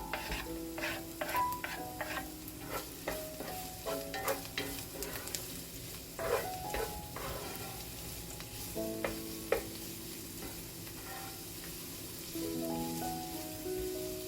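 Sliced vegetables sizzling in a frying pan while being stirred, with repeated scrapes and taps of the utensil against the pan, busiest in the first half and again around the middle. Soft piano music plays underneath.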